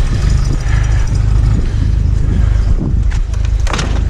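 A vehicle engine idling with a steady low rumble, and a few short knocks or rustles past the middle.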